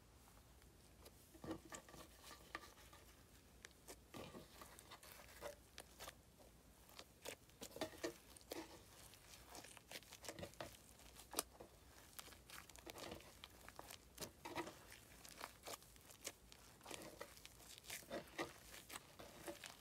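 Slime being kneaded and folded by hand with shaving foam: irregular sticky crackles and small pops, with sharper clicks here and there.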